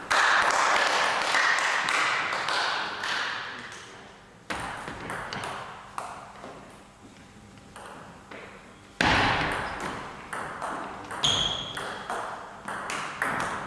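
Table tennis rally: the ball clicking off bats and table again and again, each hit ringing on in the hall. There are two louder sudden bursts, one at the start and one about nine seconds in.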